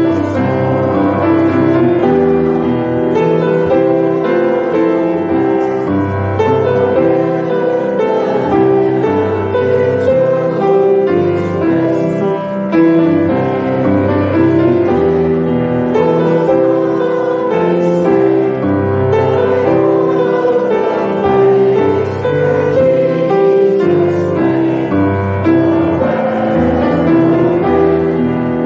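Grand piano playing a Christmas carol accompaniment, with a group of people singing along.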